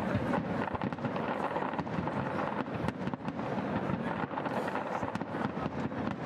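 Aerial fireworks bursting in quick succession: a dense, unbroken run of bangs and crackles.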